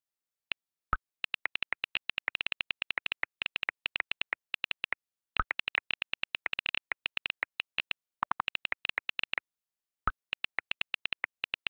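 iPhone on-screen keyboard clicks in quick runs as text is typed, broken by a single deeper pop about a second in, again around five seconds in and just after ten seconds: WhatsApp's message-sent sound.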